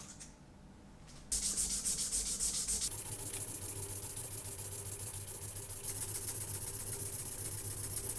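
A round metal part of a Rolex Datejust case rubbed by hand in circles over abrasive paper laid on a flat block: steady gritty scraping of metal on sandpaper, starting about a second in after a short quiet moment.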